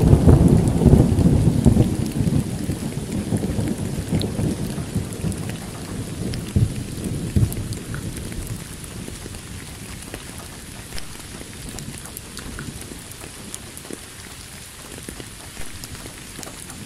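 A roll of thunder that starts loud and fades away over about eight seconds, over the steady hiss of rain.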